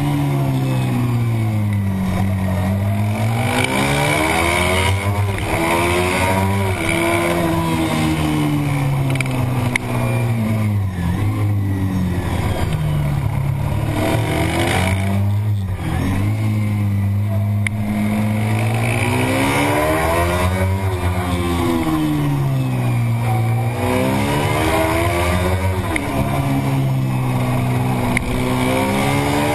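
Racing motorcycle engine heard onboard, revs climbing hard and dropping again and again as the rider accelerates out of corners and brakes and shifts down into the next, with a brief break in the engine note about halfway through.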